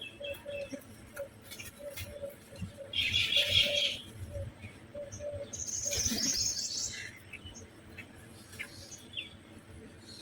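Crows calling: two loud harsh calls, about three and six seconds in, with fainter short calls between and around them.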